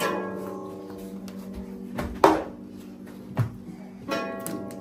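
Soft background acoustic guitar music with a single sharp knock a little over two seconds in, and a few lighter clicks near the end, from a dresser drawer being opened and handled.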